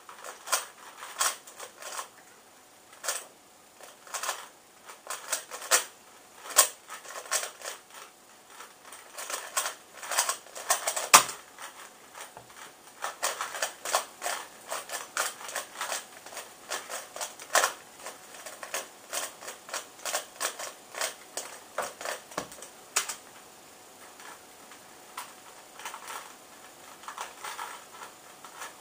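3x3 Rubik's cube being turned fast in a speedsolve: rapid runs of plastic clicking and clacking from the layers turning, broken by short pauses, with a couple of louder knocks.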